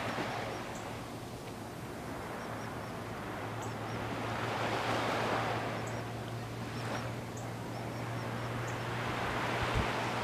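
Gentle surf on a calm sea, the wash of small waves swelling and fading about every five seconds.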